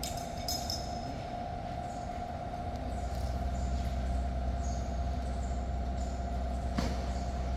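Industrial rotary dryer running under test: a steady mechanical hum with a constant tone above it. Short metallic squeaks come in the first second, and a single sharp knock comes near the end.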